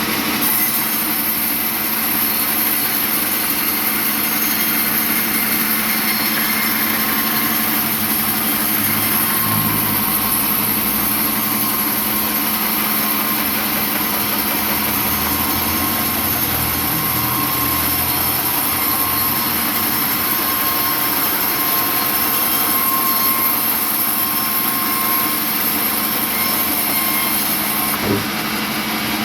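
Sawmill machinery running steadily: a motor-driven saw with a constant hum and a high whine that drops away about a second before the end, together with a short knock.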